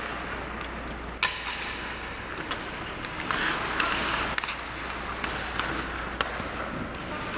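Ice hockey play: skate blades scraping on the ice, with a hissing scrape a little past three seconds in, and sharp clacks of sticks and pucks, the loudest a little over a second in.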